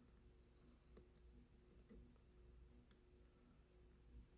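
Faint, sparse clicks of a lock pick working the pins of an American Lock A701D padlock, with two sharper clicks about a second in and near three seconds in, over a faint low hum.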